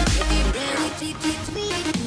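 Background electronic dance music; the deep bass drops out about half a second in, leaving synth notes.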